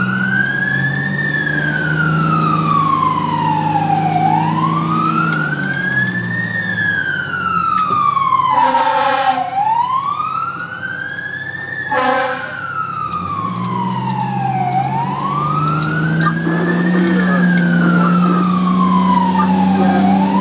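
Fire rescue truck's siren sounding a slow wail, rising and falling about every five seconds, heard through an open window from inside the truck over the truck's engine drone. Two air horn blasts come partway through, one about a second long and one short.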